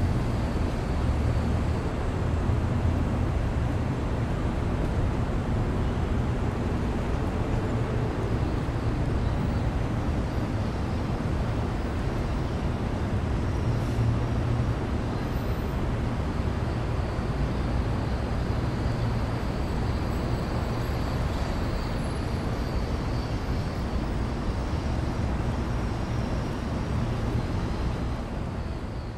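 City alley ambience: a steady low rumble of urban background noise, with a faint steady high tone above it.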